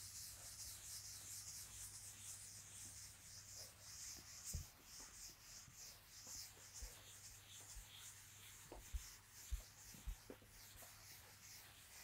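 Faint rubbing of a duster wiping chalk off a chalkboard, a soft hiss, with a few soft low knocks in the second half.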